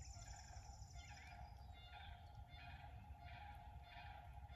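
Faint calls of distant birds, likely cranes or geese, repeated about twice a second from about two seconds in, over a quiet steady background.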